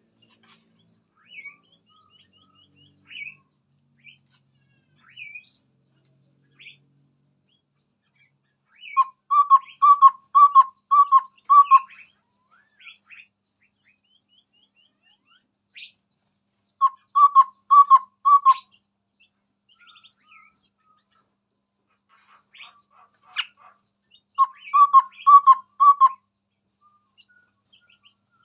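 Chestnut-rumped babbler singing: three bouts of five or six low, evenly spaced hooting notes, with softer high chirps and twitters between the bouts.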